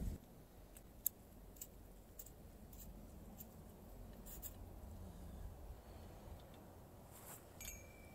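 Faint scattered clicks and scrapes of thin steel fence wire being handled and threaded through a small metal fitting, over a low steady rumble.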